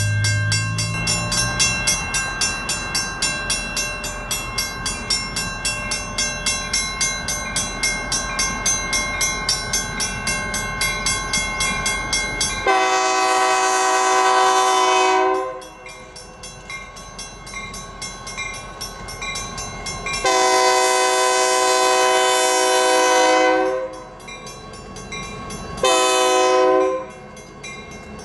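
A grade-crossing bell ringing in quick, even strokes over a low rumble. About halfway through, the EMD SD40-2 locomotive's Nathan K3LA-R2 air horn blows the crossing signal, a chord of several notes: two long blasts and then a short one, with the bell still ringing faintly between them.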